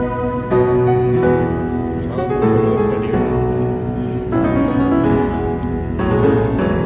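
Instrumental background music, with held notes changing every second or so.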